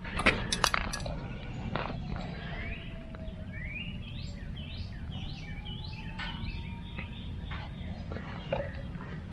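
A bird calling a run of about eight quick rising chirps, roughly two a second, over a steady low background rumble. A few sharp clicks come in the first two seconds.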